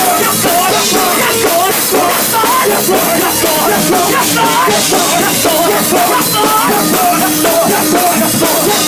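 Men's gospel group singing live into handheld microphones, a lead voice sliding and ornamenting its notes over a loud, dense accompaniment.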